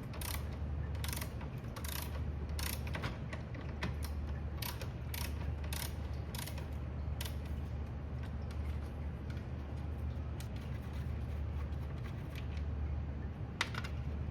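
Ratcheting driver with a T30 Torx bit backing out a Torx screw, clicking in irregular strokes: about two clicks a second at first, thinning out midway, with a few more near the end, over a low steady hum.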